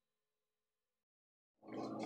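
Near silence as background music dies away. About a second and a half in, kitchen sound cuts in abruptly: a wire whisk scraping and clicking in a pan of white sauce over a low steady hum.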